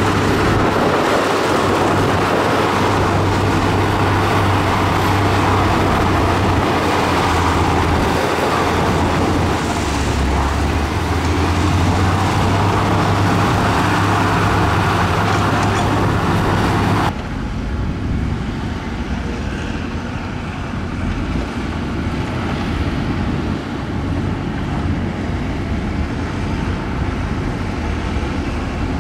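Heavy earthmoving machine's diesel engine running steadily under load, with a constant low hum. About two-thirds of the way through the sound changes abruptly to a quieter engine sound with less hiss.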